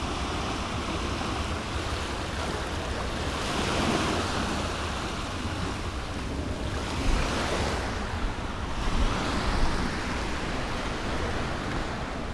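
Sea waves washing onto a beach, swelling a couple of times, with wind rumbling on the microphone.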